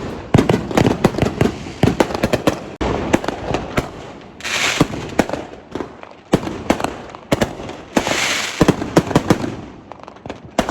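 Consumer fireworks and firecrackers going off in rapid, overlapping bangs and pops, with two longer crackling, hissing bursts about four and a half and eight seconds in.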